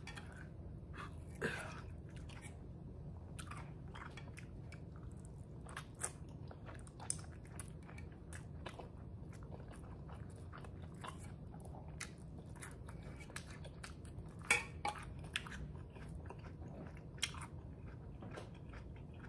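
Close-miked chewing and wet mouth sounds of a person eating spicy noodles, with scattered sharp smacks and clicks. The loudest comes about three-quarters of the way through.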